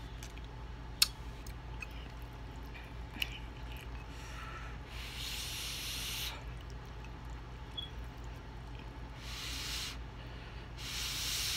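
Ramen noodles being slurped off a fork, three long slurps in the second half, with chewing between them. A sharp click about a second in.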